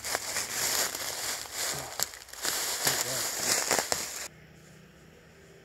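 Footsteps crunching through dry fallen leaves, a dense crackling and rustling with sharp snaps. It cuts off suddenly about four seconds in.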